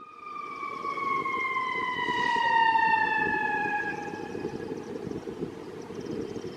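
Fire truck siren sounding one long tone that falls slowly in pitch over about five seconds and fades out, over the steady low rumble of the moving truck.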